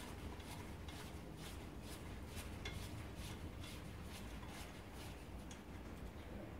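Small metal clicks and clinks at an uneven pace, about two a second, as spoke nipples are spun finger-tight onto new spokes of a laced motorcycle wheel.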